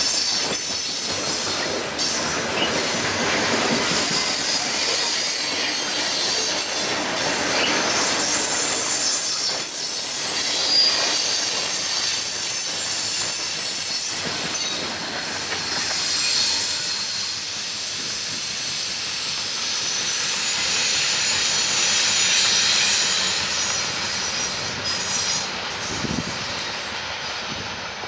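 Loaded CSX coal cars rolling past on steel rails, the wheels squealing against the rail, fading somewhat near the end.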